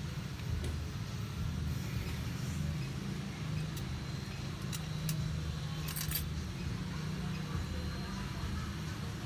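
Steady low hum in the workspace, with a few light, sharp metallic ticks, the clicks of small tools such as tweezers against a phone logic board during chip removal.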